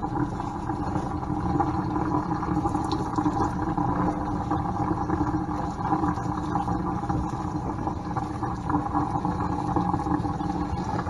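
Water from a kitchen sink's pull-out sprayer running steadily, rinsing dreadlocks over the sink.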